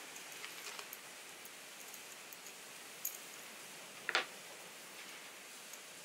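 Small metal clicks as a hex nut and washer are handled on a threaded steel rod, with a sharp click about three seconds in and a brief ringing metal clink just after four seconds, over a faint steady hiss.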